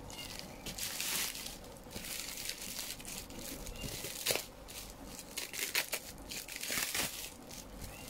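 Plastic packaging bag crinkling and rustling as it is handled and pulled off a box, with a few sharp clicks.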